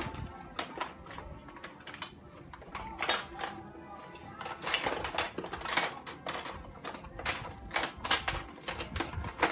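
Small objects clattering, clicking and rustling in a drawer as a toddler rummages through them, in irregular knocks a few times a second.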